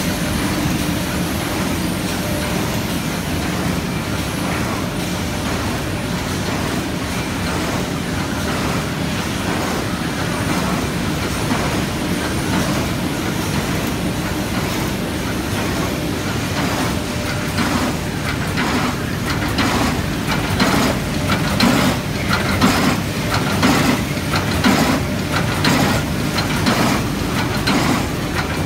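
Automatic folder gluer for corrugated cartons running, a steady mechanical hum as cardboard blanks feed through its folding section. A regular clatter of knocks, more than once a second, grows stronger in the second half.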